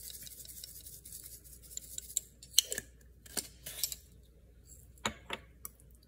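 Garlic salt shaken from a shaker over a bowl: a fine, fast rattle of grains, followed by several sharp clicks and taps of the shaker and fork. Near the end a metal fork clinks twice against the ceramic bowl as the seasoning is mixed in.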